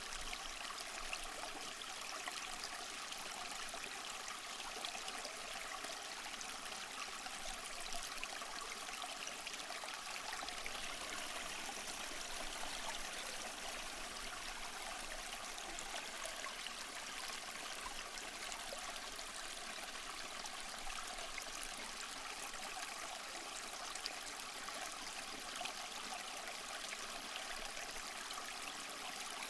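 Small mossy waterfall splashing and trickling steadily.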